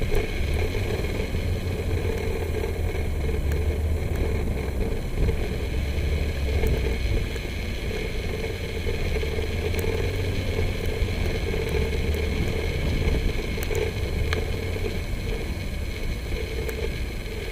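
SUV driving along a dirt track: a steady low engine and tyre rumble with a droning note, and scattered small ticks.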